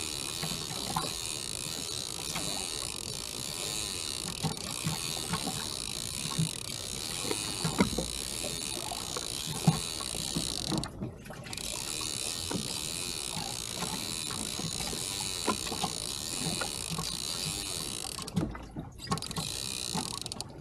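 Fishing reel paying out line as a lead-weighted trolling rig is lowered: a steady high-pitched buzz that stops briefly about eleven seconds in and again near the end. Scattered knocks of gear on the kayak.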